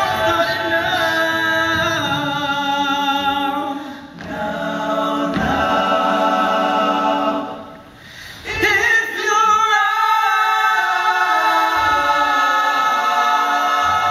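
All-male a cappella group singing sustained chords in close harmony without instruments, with short breaks about 4 and 8 seconds in, then a long held chord.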